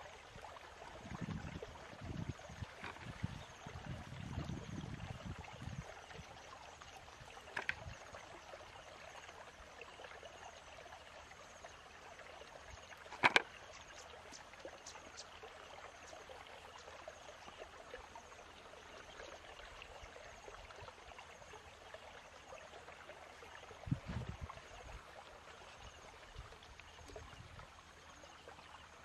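Woven bamboo fish trap being handled while it is emptied, with a sharp knock about halfway through and a dull thump near the end as it is stood on the ground, over a steady hiss like running water and low rumbles in the first few seconds.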